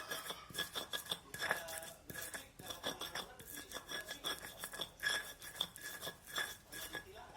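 Manual hand-operated spice grinder working a spice paste of chillies, shallots and garlic: a quick, irregular run of sharp metallic clicks and clinks with a short ring.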